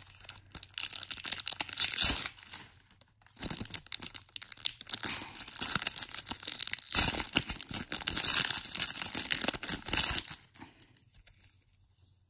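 Foil booster pack wrapper crinkling and tearing as it is opened by hand, with a brief pause about three seconds in; it stops near the end.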